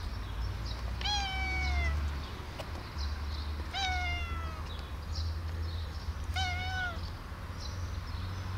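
Long-haired black domestic cat meowing three times, a few seconds apart. Each meow is drawn out, under a second long, and starts high before sliding slightly downward.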